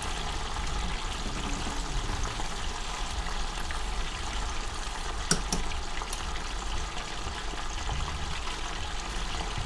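Chicken pieces deep-frying in hot oil in a saucepan: steady sizzling and bubbling, with two sharp clicks about halfway through.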